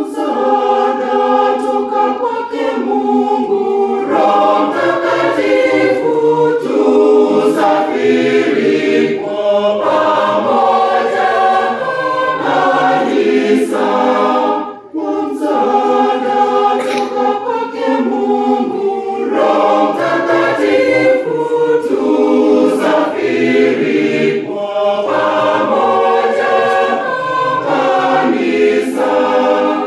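Church choir of men and women singing together in parts, starting abruptly at the beginning, with one short break about halfway through.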